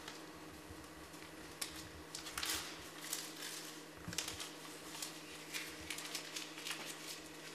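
Faint scattered clicks, taps and rustles of a person moving on a metal stepladder and handling something by the wall, with a short hiss about two and a half seconds in, over a steady low electrical hum.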